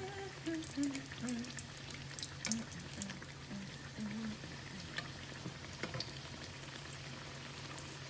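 Guyanese bakes (dough) deep-frying in hot oil, sizzling with irregular sharp crackles and pops over a steady low hum.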